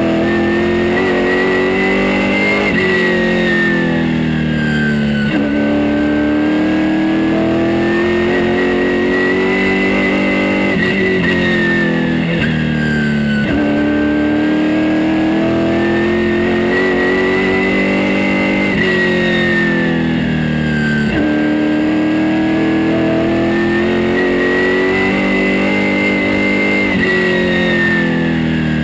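In-car sound of a super late model race car's V8 engine running hard on an oval. It climbs in pitch down each straight, then drops sharply as the driver lifts for the turns, about every eight seconds. A high whine rises and falls with it.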